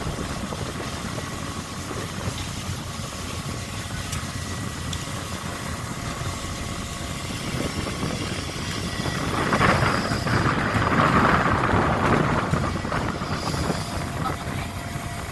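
Steady low drone of a longline fishing vessel's engine and machinery. A louder rushing noise swells in about ten seconds in and lasts a few seconds.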